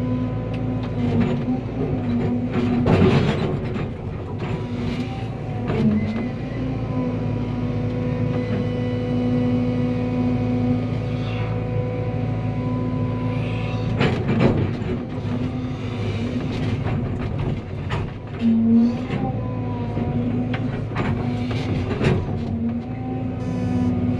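Cat 320 excavator's diesel engine running steadily under hydraulic load, its note dipping briefly twice as it lugs, with a few loud knocks spread through.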